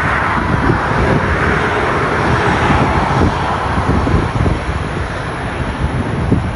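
Boeing 737-400 freighter's CFM56 jet engines running as it taxis, a broad rushing hiss that is strongest for the first few seconds and eases after about three seconds. Wind buffets the microphone in low, uneven gusts.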